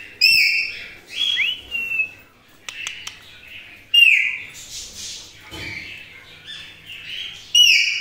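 Rose-ringed parakeets giving shrill screeching calls, about five in all, most of them dropping in pitch, the loudest about four seconds in and again near the end.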